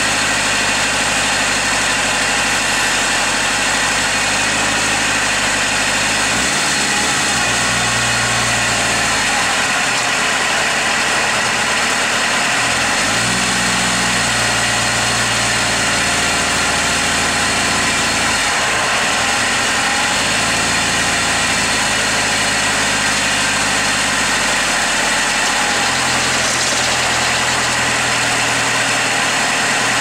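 Ford Transit van's diesel engine running just after a hard cold start on jump leads, its speed dropping and picking up again several times as it settles.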